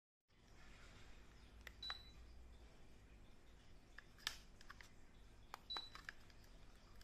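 Moss DC-motor ceiling fan's receiver giving two short high beeps about four seconds apart, each with a click, as it takes remote-control commands. A few other clicks, the sharpest in the middle, sit over a faint low room hum.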